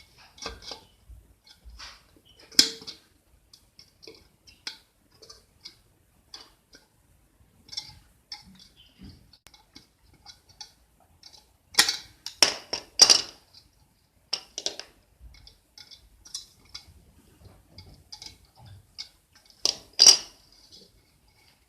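Scattered light clicks and taps, like small hard objects being handled, with a few louder sharp knocks: one about two and a half seconds in, a quick cluster about halfway through, and one more near the end.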